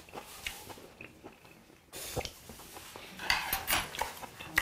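Metal chopsticks clicking against plates while someone chews raw beef, with a sharp clink near the end.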